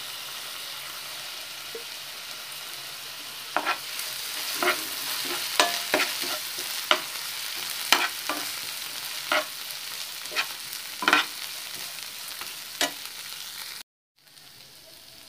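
Peas, carrots and chilli frying in ghee in a pan, sizzling steadily, with a spatula stirring and scraping against the pan in strokes about once a second from a few seconds in. The sound cuts out for a moment near the end and a quieter sizzle follows.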